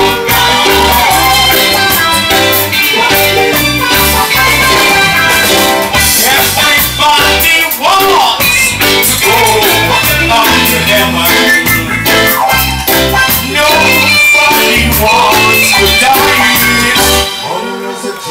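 Live reggae band playing loud through the stage PA: a steady bass line with drums and keyboards. Near the end the band drops back and goes quieter.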